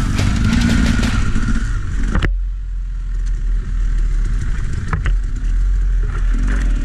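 Enduro dirt bike engine running as the bike rides a forest trail, heard from the rider's helmet camera, with an abrupt change in the sound about two seconds in.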